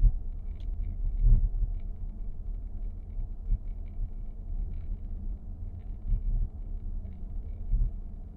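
Irregular ticking and creaking from the dashboard of a 2023 Nissan X-Trail e-POWER, over the steady low rumble of the car's cabin while driving. This is the abnormal dashboard noise the owner is recording.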